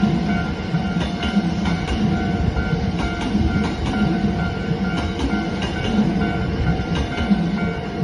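Hankyu electric train passing over a level crossing, its wheels rumbling and clattering on the rails. Over it, the crossing's warning bell rings continuously.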